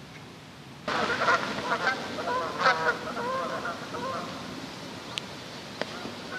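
A flock of Canada geese in flight, honking, with many calls overlapping over a rushing noise. The calls start suddenly about a second in, are loudest for the next two seconds, and then thin out.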